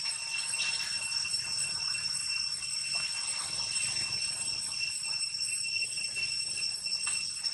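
Steady, high-pitched insect chorus with several constant shrill tones that hold unchanged throughout, typical of the tropical forest background.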